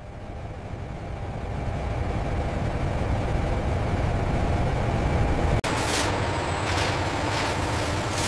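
A low, even rumble that slowly swells for about five seconds, then a sudden cut to industrial hall ambience: a steady machine hum with several short hissing air releases.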